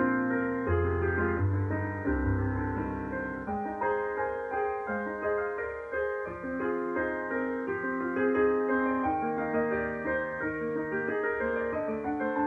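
Piano playing a flowing stream of quick notes over lower bass notes that change every second or two.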